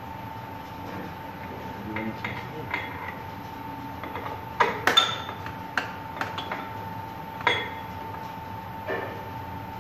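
Scattered metallic clinks and taps of wrenches and bolts against steel pipe flanges while a butterfly valve is bolted onto a rubber expansion joint, the loudest cluster about halfway through, over a steady hum.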